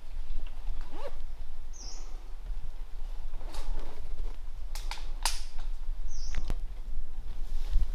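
A forest bird gives a short high call twice, the two calls alike and about four and a half seconds apart. A few sharp clicks and snaps come in between, over a steady low rumble.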